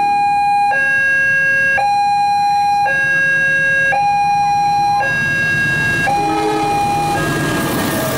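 Railway level crossing warning alarm sounding an electronic two-tone signal, switching between a high and a low tone about once a second. From about six seconds in, the rumble of an approaching train builds and the diesel locomotive passes at the end.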